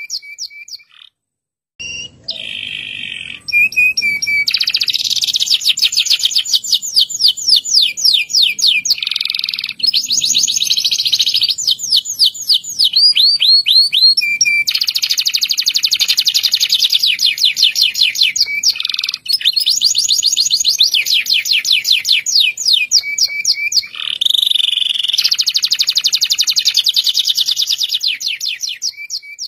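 Local Indonesian canary singing at full voice: long, high rolling trills of rapidly repeated notes, one phrase running into the next every few seconds, after a short pause near the start.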